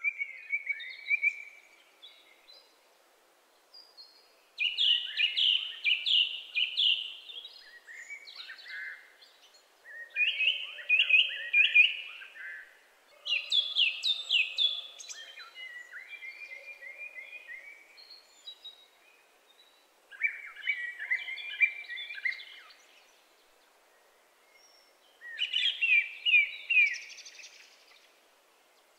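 Small songbirds singing in short, fast trilled phrases of two to three seconds each, with pauses of a second or more between them.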